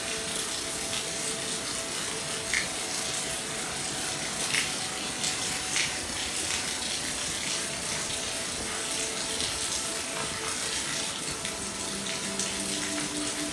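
Steady rain falling, an even hiss, with a few louder single drops striking close by about two and a half, four and a half and six seconds in.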